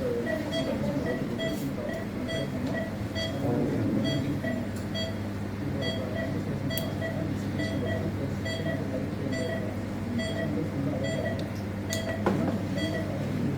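Operating-theatre patient monitor beeping at a regular pace over the steady low hum of theatre equipment, with a brief clatter of instruments near the end.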